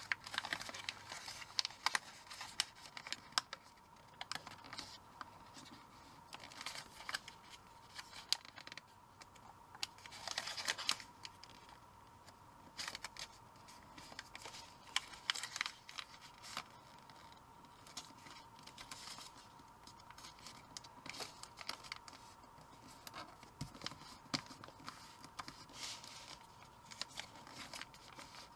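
Origami paper being folded and creased by hand: irregular rustling and crinkling, with short scratchy strokes as creases are pressed flat.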